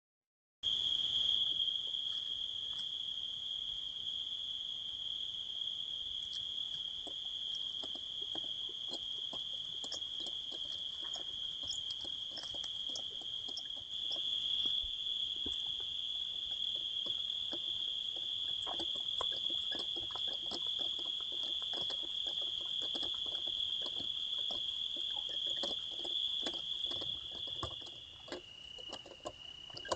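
Steady high-pitched trill of crickets or similar insects, shifting slightly in pitch about halfway and dropping lower near the end, with many scattered short clicks and crackles through it.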